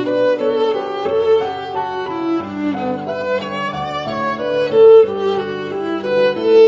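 Background music: a bowed-string melody led by violin.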